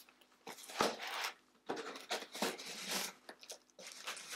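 Packing tape being scraped and torn open along the top of a cardboard box, the cardboard flaps rustling: irregular short scratchy rasps, with a sharp knock just under a second in.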